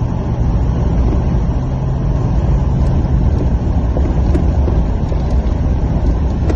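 Vehicle driving on a snowy dirt road, heard from inside the cabin: a loud, steady rumble of engine and tyres, with a few faint scattered ticks.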